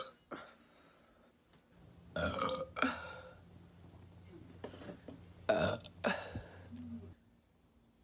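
A young woman burping several times: a burp about two seconds in with a shorter one just after, a small one near the middle, and a loud one around five and a half seconds in, over a low steady hum.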